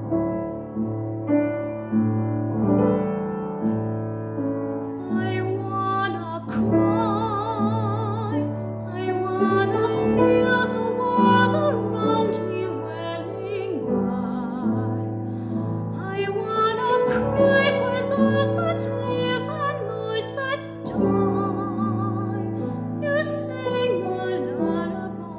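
A classically trained female voice singing an art song with wide vibrato over piano accompaniment. The piano plays alone at first, and the voice comes in about five seconds in.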